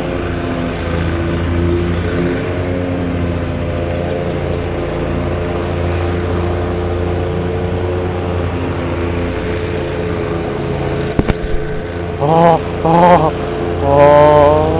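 A motor engine running steadily with a low, even hum, its pitch wavering slightly. A sharp click comes about 11 seconds in, and several short wavering pitched calls follow near the end.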